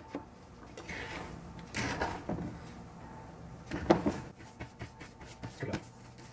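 A cooking utensil scraping and knocking against a nonstick frying pan as egg whites are stirred and scrambled, with a few louder knocks about two seconds in, about four seconds in, and near the end.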